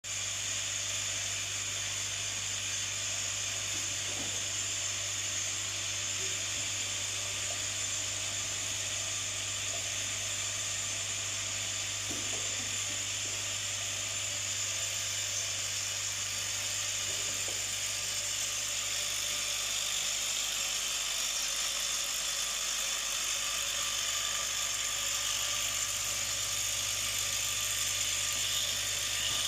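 Automatic bottle filling and capping line running: a steady high-pitched machine whine over a constant low hum.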